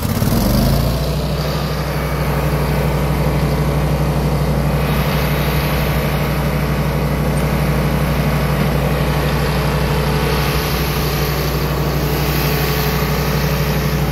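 Bandit SG-40 tracked stump grinder's engine running steadily at speed. It revs up within the first second.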